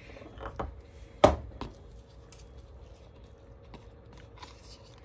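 Parts and tools being handled at a workbench: a few light clicks, then one sharp knock about a second in and a smaller one just after, then scattered faint ticks over a faint steady hum.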